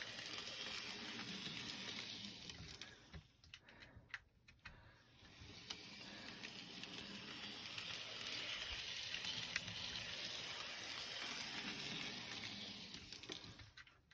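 Bachmann N-scale GP40 model locomotive running on the track: the faint whirring hiss of its small electric motor and gearing, which cuts out briefly about three to five seconds in and picks up again.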